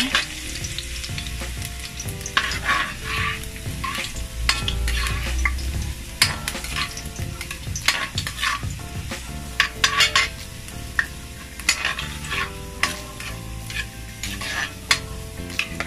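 Minced garlic sizzling in hot oil in an aluminium wok, with a metal ladle stirring it and scraping and tapping against the pan at irregular moments. The garlic is frying toward golden brown.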